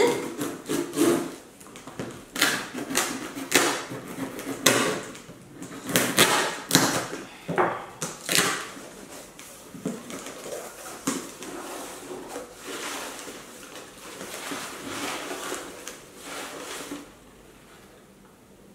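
Cardboard shipping box being opened: packing tape ripped off and the flaps pulled open in a series of short, loud tearing rasps. Then softer rustling of crumpled brown packing paper being pulled out, which dies away about two seconds before the end.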